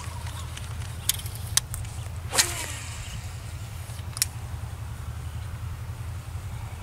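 A few sharp ticks and one louder swishing splash about two and a half seconds in, over a steady low rumble: a topwater frog lure being twitched across lotus pads.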